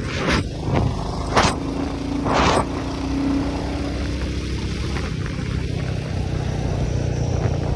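Motorcycle engine running steadily under the rider, with road and wind noise and three short rushes of noise in the first few seconds.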